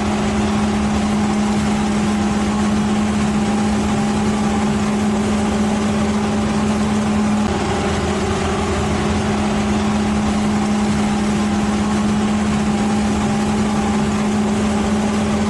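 A machine's engine running steadily at one constant pitch, a loud even hum with a rough mechanical noise under it.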